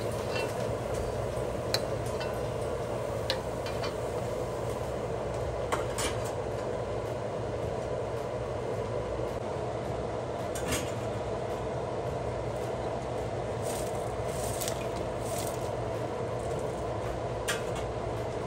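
Metal utensils clinking now and then against a kadhai and strainer as fried pakoras are lifted out of the oil, over a steady low kitchen hum.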